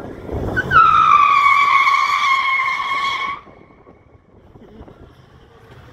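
Tyre squeal from a Ram pickup truck pulling away around a bend: one loud, steady squeal that dips slightly in pitch at first, lasts about three seconds and cuts off suddenly.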